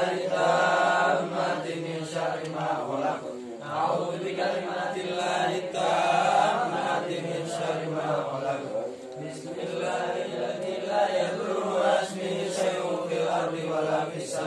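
A group of men chanting Islamic devotional phrases (dhikr and sholawat) together in a steady, continuous chant, with two brief breaks.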